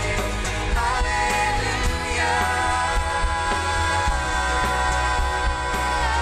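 Live worship band playing: singers over bass guitar, keyboard and acoustic guitar, with a strong bass line. The vocal settles into one long held note for the second half.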